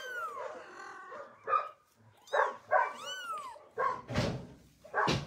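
Newborn kittens mewing: several thin, high cries that rise and fall, among short, sharp barks or yaps, the loudest of them near the end.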